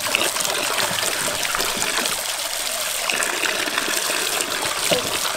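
Stream of water pouring steadily into a metal basin full of water, with splashing and sloshing as hands rub and turn peeled onions in it.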